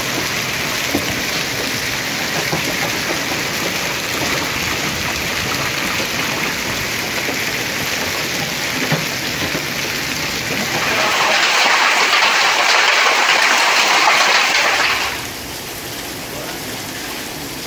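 Heavy rain and hail falling on paved ground, a dense steady hiss. It grows louder for a few seconds about two-thirds of the way through, then drops to a softer rain sound.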